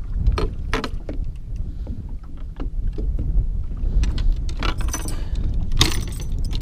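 Fishing rods and reels clicking and knocking against each other and the boat deck as they are handled, over a steady low rumble. The loudest knock comes near the end.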